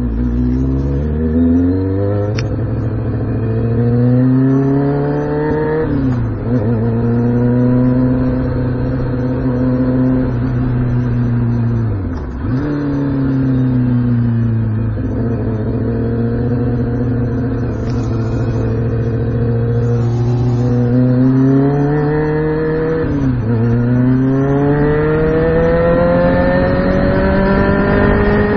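2006 Kawasaki ZX-6R 636's inline-four engine under hard acceleration, its pitch climbing, then dipping sharply at three gear changes, and climbing again toward the end.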